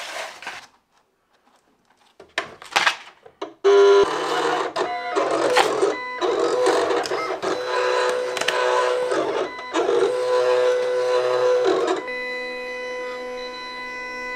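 A few clicks as a sheet of vinyl is fed into a Silhouette Cameo 4 cutting plotter, then, about four seconds in, the plotter's motors whirring in stop-start runs as the blade carriage cuts a vinyl stencil. Near the end it settles into a steadier, quieter hum.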